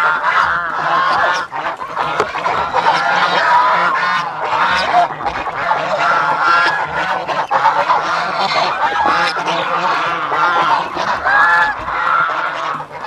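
A flock of white domestic geese honking over one another nonstop, a loud, noisy clamour as they crowd around the feed pans at feeding time.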